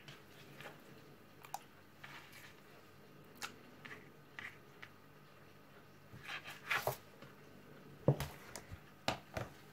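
Raw pounded chicken fillets being lifted off a plastic cutting board and laid onto a plate by hand: soft wet slaps and scattered light clicks. Near the end come two knocks as the plate is set down on the table.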